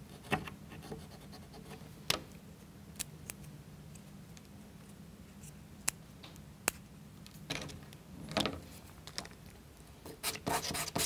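Small sharp clicks, taps and scrapes from hands working wooden model-kit parts: a craft knife trimming off the toothpick pins of the crankshaft assembly, then the parts being handled and pressed together. A faint steady low hum lies underneath.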